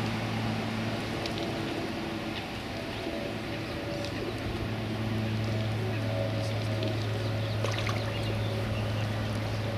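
Steady low mechanical hum with a few overtones over a constant rushing noise, with a few faint high ticks scattered through, several close together near the end.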